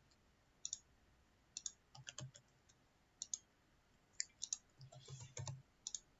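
Faint computer keyboard typing and mouse clicks: short, sharp clicks in small clusters of two to four, every second or so.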